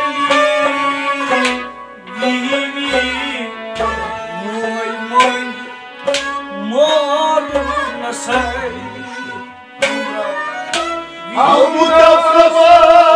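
Kashmiri Sufi kalam music: a melody that slides between notes over drum strokes with deep bass thumps. Near the end a louder held melody line with vibrato comes in.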